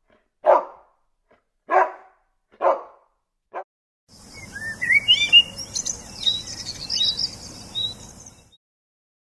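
A dog barks four times, about a second apart. Then small birds chirp with quick rising calls for about four seconds.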